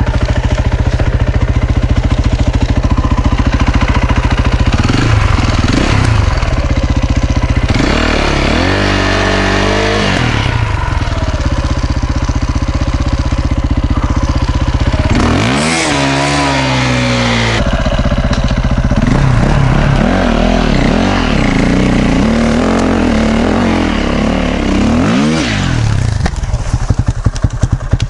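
KTM EXC 450 single-cylinder four-stroke enduro engine running hard under load on a steep hill climb. It revs up and down in several surges, and near the end it drops to a slow, uneven pulsing.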